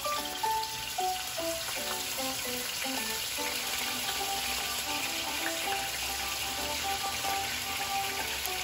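Hot cooking oil sizzling in a nonstick frying pan, a steady crackling hiss, under background music.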